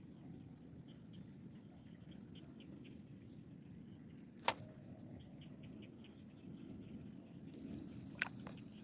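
Quiet outdoor rice-paddy ambience: a low, steady rumble with faint ticking, broken by one sharp click about four and a half seconds in and a smaller one near the end.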